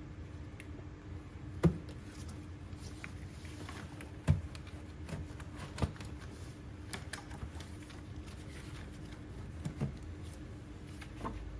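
A few sharp knocks and clicks, spaced irregularly over a steady low hum.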